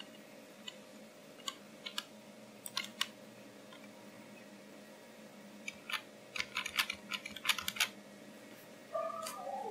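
Computer keyboard keys clicking: a few scattered presses in the first three seconds, then a quick run of typing about six seconds in, over a faint steady hum.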